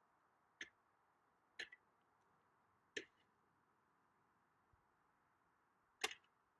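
A long pole striking at icicles along a cabin's eave: four faint, sharp cracks spaced one to three seconds apart, the last one the loudest.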